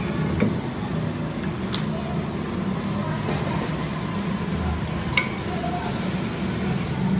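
A steady low rumble with a few light metallic clinks, about half a second, two seconds and five seconds in.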